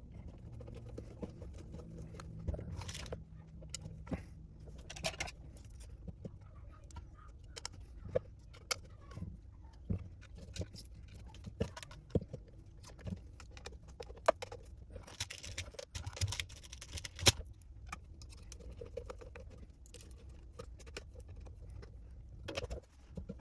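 Scattered light clicks and clinks of small screws, a screwdriver and plastic model parts being handled, with a longer rustling scrape a little past the middle.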